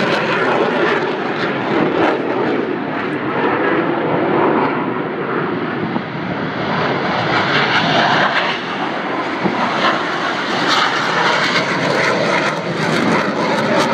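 CF-18 Hornet fighter jets taking off, their twin F404 turbofan engines making a loud, steady jet noise.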